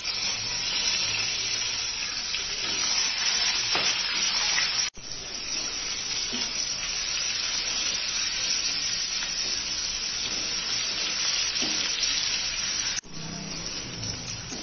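Sliced onions sizzling in hot mustard oil in a kadai: a steady frying hiss that breaks off for an instant twice, about five seconds in and near the end.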